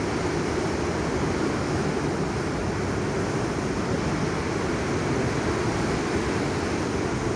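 Steady rushing noise of ocean surf and wind, with no separate wave crashes standing out.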